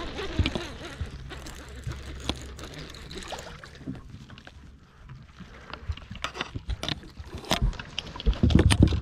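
An angler bringing in and handling a white bass in a small fishing boat. A low steady hum runs through the first few seconds, then come scattered clicks and knocks, with a louder scuffling burst near the end.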